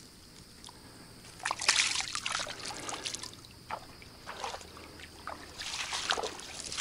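Water splashing and sloshing in shallow water at the bank, in two spells: one starting about a second and a half in, another near the end.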